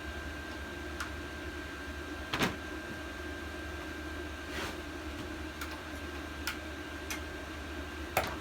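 Scattered metallic clicks and knocks of hand tools on bolts while the edger's belt guard is unbolted, the loudest about two and a half seconds in and another near the end, over a steady background hum with a thin high tone.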